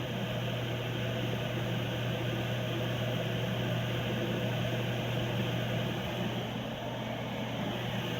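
Coleman mobile home furnace running steadily with its blower motor on: a constant motor hum under a rush of moving air, the furnace working again with its new ignition module.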